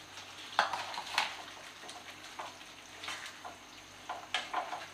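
Wooden spatula stirring paneer cubes into simmering spinach purée in a frying pan: several sharp, irregular scrapes and knocks against the pan over a faint steady sizzle.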